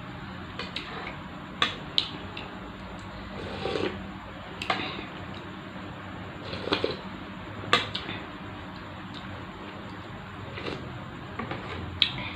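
Eating sounds: scattered sharp clicks of utensils against a bowl, with softer chewing and slurping of glass-noodle soup between them, over a steady low hum.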